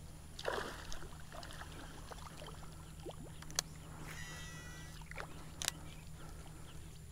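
Light water splashing and knocks from a fishing kayak: a short splash about half a second in, two sharp clicks later on, and a brief warbling whine in between, over a steady low rumble.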